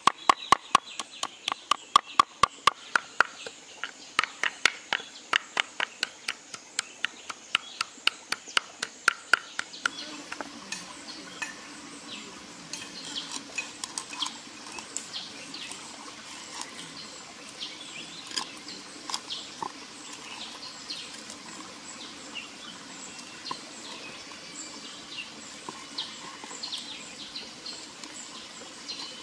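Knife chopping and mincing raw fish flesh on a wooden chopping board, fast regular strokes about four a second, which stop about ten seconds in. After that, birds chirp now and then over steady background noise.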